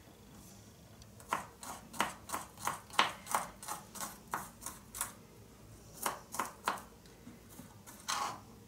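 Knife chopping garlic finely on a cutting board: a run of quick, even chops at about three a second, a short break, then a few more chops.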